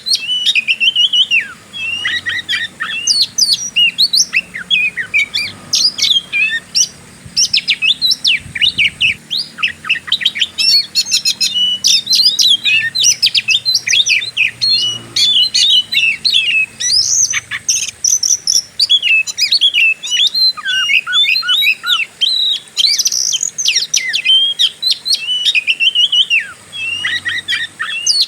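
Oriental magpie-robin singing a fast, continuous, varied song of sharp whistles, sweeps and chattering notes, in the aggressive 'fighter' style.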